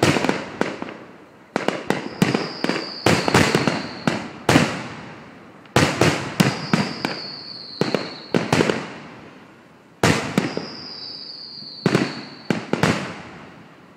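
Aerial fireworks bursting in quick clusters of loud bangs, each trailing off in a rumbling echo. A high whistle lasting about a second, falling slightly in pitch, comes three times between the bursts.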